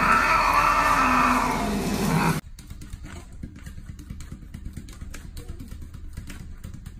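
A wet cat being bathed gives a loud, drawn-out yowl lasting about two and a half seconds, which cuts off suddenly. Then come only quieter scattered ticks and taps.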